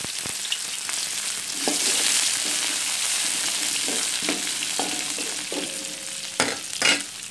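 Chopped onions sizzling in hot oil in a steel wok, stirred with a spatula that scrapes against the pan. Two sharper scrapes or knocks of the spatula on the wok come near the end.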